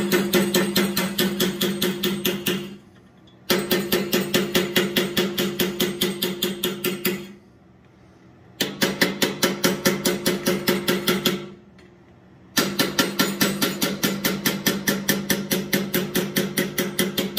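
Hammer tapping a ball punch into hot steel on an anvil to smooth a groove, quick even blows at about five a second with a metallic ring. The blows come in four runs of a few seconds each, with short pauses between them.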